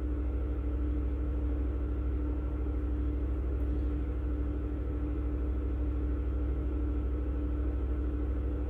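Steady low background hum with a constant tone held over it, unchanging throughout.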